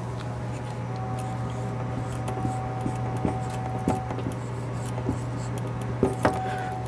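Felt-tip marker writing on flip-chart paper: short scratchy strokes over a steady low hum of the room.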